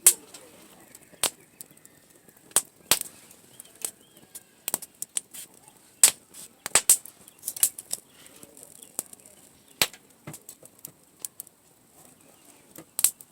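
Wood campfire crackling, with irregular sharp pops and snaps of burning wood.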